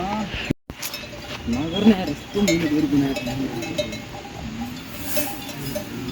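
Livestock bells clinking and ringing. A long wavering call from a voice or an animal runs through the middle.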